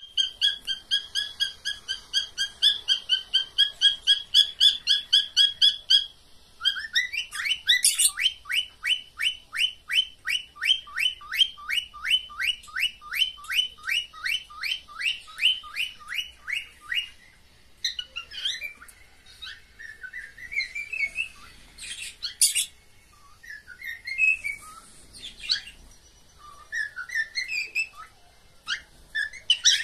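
Cockatiels calling in a mating display: a fast run of repeated high chirps for about six seconds, then a long series of quick sliding notes about three a second, breaking up after about 17 s into scattered chirps and short rising whistles.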